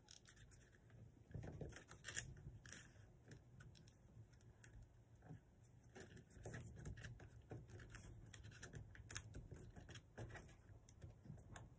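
Faint, irregular rustling and crinkling of a sheet of paper being handled, folded and creased by hand.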